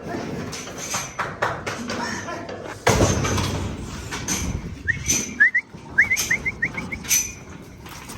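Scattered knocks and rattles with a sudden heavy thud about three seconds in, then a quick run of about eight short rising chirps from a bird.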